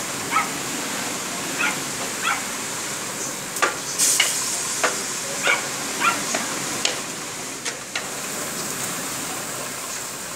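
A dog barking, about ten short barks at irregular intervals, over the steady hiss of heavy wind-driven rain.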